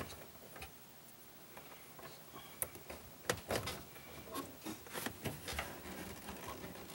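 Quiet handling sounds of a rubber fuel line and its plastic push-fit union on top of a car's fuel pump module: scattered small clicks and light knocks, starting about two and a half seconds in.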